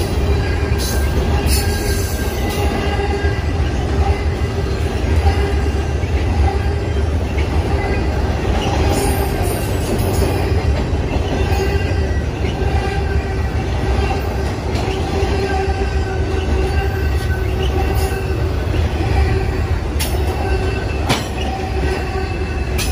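Intermodal freight train's flatcars loaded with semi-trailers rolling past: a steady, loud rumble of steel wheels on rail with a thin, steady wheel squeal over it and a few sharp clicks.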